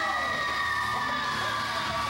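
Heavy rock entrance music with a long held note, and a crowd yelling over it.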